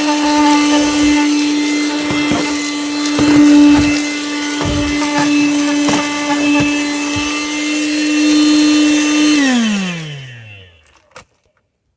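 Handheld 12 V 106 W car vacuum running with a steady high whine, with scattered clicks and knocks. About nine seconds in it is switched off and the motor's pitch falls away as it spins down to silence.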